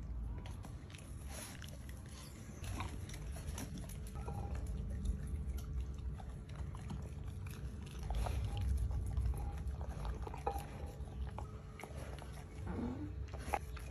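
A chocolate Labrador chewing and licking up cooked kale: irregular wet smacks and clicks of its jaws and tongue over a steady low rumble.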